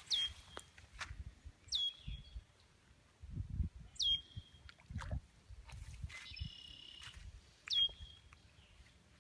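A bird calling four times, each call a quick downward-sweeping whistle that settles into a short held note. A different call of a few steady whistled notes comes about six and a half seconds in, and a few dull low thuds fall in between.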